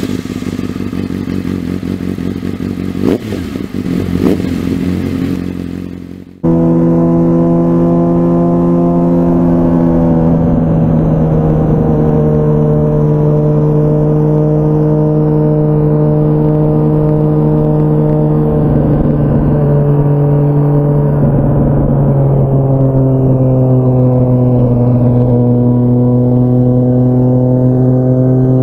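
2004 Honda CBR1000RR Fireblade's inline-four engine running through a Jardine titanium exhaust, held at a steady cruising speed; its note stays at one pitch, easing down slightly a few times. The first six seconds are a different, noisier stretch with wind rush and a couple of knocks, cut off abruptly.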